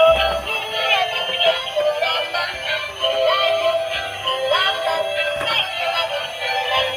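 Battery-powered Tayo toy bus playing a song through its small built-in speaker: an electronic melody with synthesized singing, thin with no bass.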